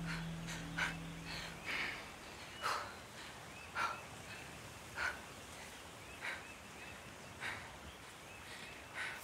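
A young woman's heavy breathing while jogging, one hard breath about every second. A low held music note stops about a second and a half in.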